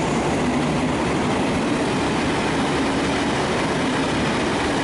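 V/Line VLocity diesel multiple units passing through at speed: a steady, loud rumble of wheels on rail and underfloor diesel engines.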